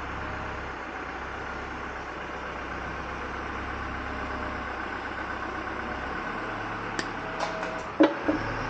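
Steady hissing, engine-like background hum, with a few light clicks near the end and a sharp knock about eight seconds in.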